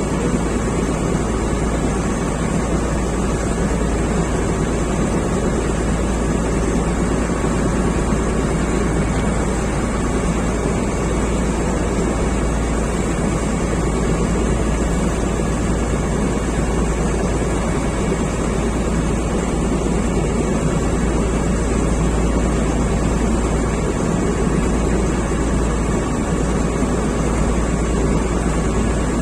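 Ferry boat's engine running with a steady drone, mixed with wind and water noise.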